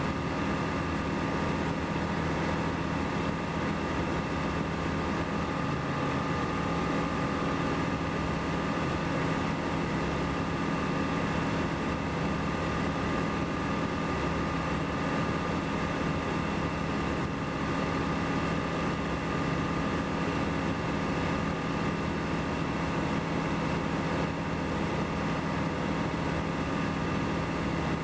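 Light aircraft's engine and propeller droning steadily in level flight, holding one even pitch throughout.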